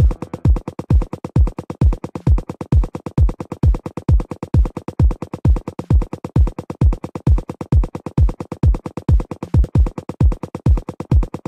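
Electronic dance track: a deep drum-machine kick on every beat, a little over two a second, with fast thin percussion ticks between the kicks and a steady held synthesizer note.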